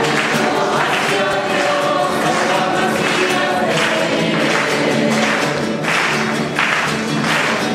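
A choir singing a religious hymn, many voices together.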